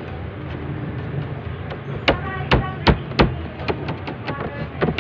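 Ensaymada dough being worked by hand on a stainless steel worktable: a quick run of about four sharp knocks and slaps near the middle, then a few lighter taps, over a steady low hum.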